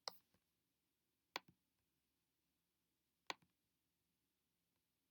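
Three single sharp clicks at a computer, the second about a second and a half after the first and the third two seconds later, in near silence.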